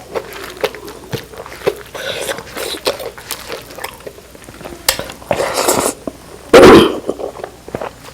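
Close-up mukbang eating sounds: wet chewing and smacking with small clicks of utensils against a dish, and one much louder burst about six and a half seconds in.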